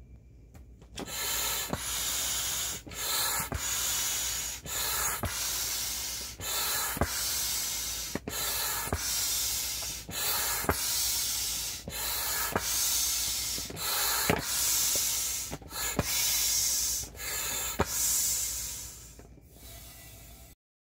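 Air pump blowing through a hose into a vinyl inflatable ATV as it fills. A hissing rush of air is broken by short dips every one to two seconds, with vinyl rubbing and light ticks as the toy stretches into shape.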